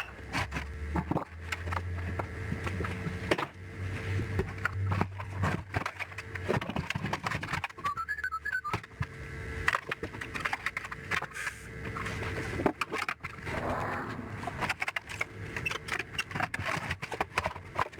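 Hands taking apart a CRT TV/VCR/DVD combo: irregular clicks, knocks and rattles of plastic casing, screws and tools being handled.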